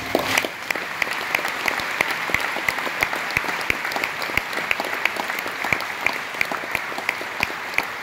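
Audience applauding at the end of a handbell piece. The last low handbell tone dies away in the first half second. One person clapping close by stands out, about three claps a second.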